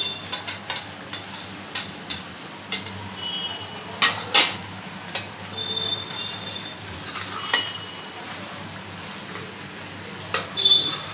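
A spoon stirring chopped raw onions and chicken pieces in a metal kadai, scraping and knocking irregularly against the pan with a few short ringing clinks.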